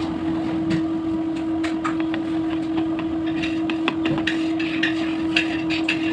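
A steady mechanical hum with many scattered light clicks and taps, the taps coming more often in the second half.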